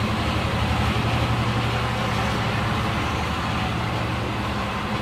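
An engine running steadily: a low, even hum with a fast pulse.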